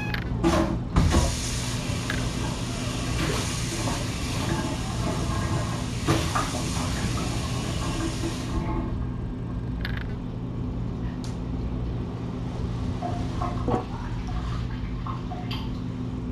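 Water running from about a second in, a steady hiss that cuts off sharply after about seven and a half seconds. A few light knocks and a steady low hum lie under it.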